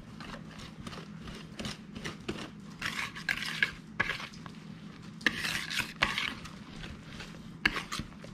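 Wire whisk stirring flour into wet carrot cake batter in a mixing bowl: the wires click and scrape against the bowl, with longer swishing strokes about three and five seconds in.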